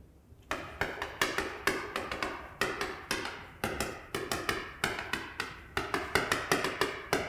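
Chalk tapping and scraping on a blackboard as characters are written by hand: a quick run of short taps, several a second, starting about half a second in.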